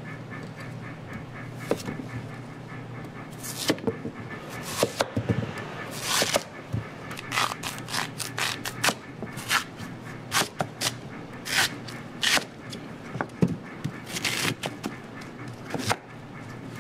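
A kitchen knife slicing through a large raw Korean radish (mu) on a plastic cutting board: a series of irregular cuts and knocks of the blade against the board, over a steady background hum.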